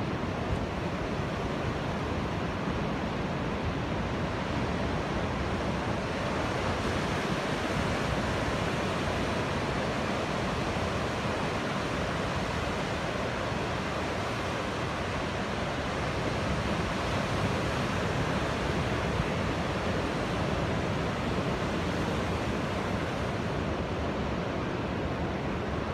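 Ocean surf, waves breaking and washing up the beach in a steady rushing noise.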